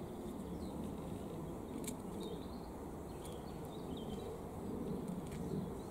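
Outdoor garden ambience: a steady low background rumble, with a few faint bird chirps and light clicks from hands working in the soil.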